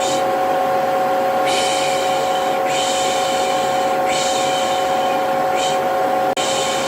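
Vacuum cleaner running steadily with a constant hum, overlaid by repeated 'piş piş' shushing hisses, each about a second long and coming every second and a half or so, the hushing used to calm a baby. The sound cuts out for a split second near the end.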